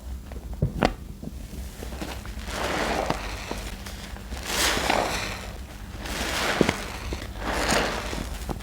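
Wet laundry-soap paste being worked with detergent and pigment. It comes in repeated wet swishing swells about every second or two, with small sticky clicks in between.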